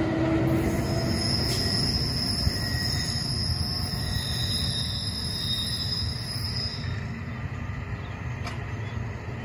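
NJ Transit electric train, an ALP-46A locomotive at its rear, moving away along the track: its low rumble fades steadily as it recedes. A thin high whine runs with it and stops about seven seconds in.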